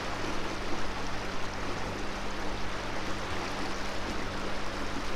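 A small houseboat's motor running steadily under way, a low even hum under a constant rush of water.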